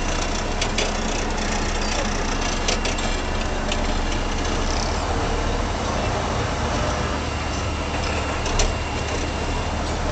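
Steady engine and road noise heard inside a moving vehicle's cabin, with a few light knocks scattered through it.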